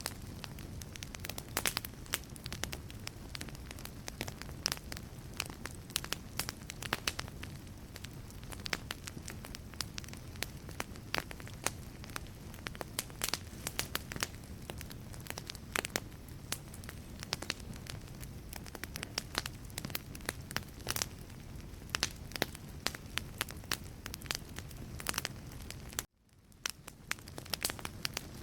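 Wood logs burning in a fireplace, crackling: frequent sharp pops and snaps over a steady low rumble of flame. About 26 seconds in the sound cuts out suddenly and fades back in.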